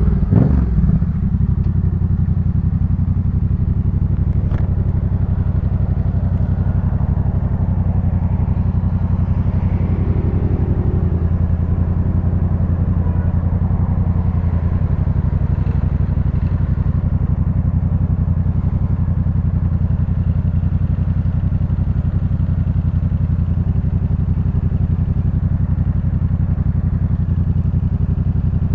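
2018 Yamaha MT-07's parallel-twin engine, breathing through a full Jeskap K4 aftermarket exhaust, idling steadily at a constant low pitch. It settles to idle about a second in as the revs drop away.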